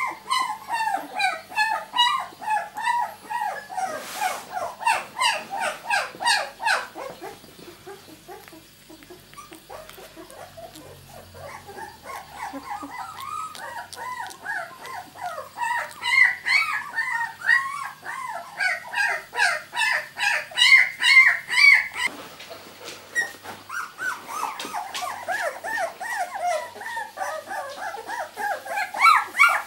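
Two-week-old miniature labradoodle puppies crying in short, high squeaks, several a second, quieter for a few seconds about a third of the way in, then loud again.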